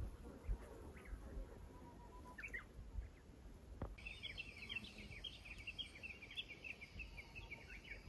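Faint forest wildlife chirping: a few short bird-like calls about two and a half seconds in, then, starting suddenly about four seconds in, a dense run of rapid, repeated high chirps. Soft low knocks sound underneath.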